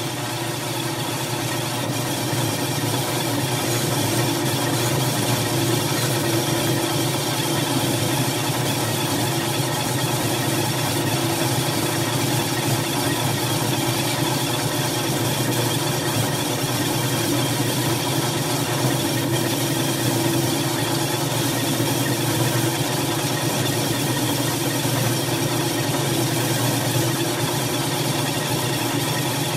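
Bench drill press running steadily with a black bristle brush wheel spinning in its chuck, a cast-iron engine piston held against the brush to clean its surface.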